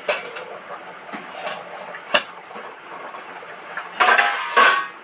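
Metal lid clinking and scraping on a kadai, with curry boiling hard underneath. A few sharp clicks come first, then a louder metallic clatter with ringing about four seconds in as the lid comes off.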